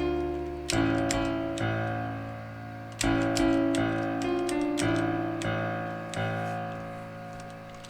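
Software piano played on a computer keyboard: a slow run of single notes and chords over bass, each struck and left to ring and fade, with a short pause partway through and a long fade near the end. Computer keys click at the presses.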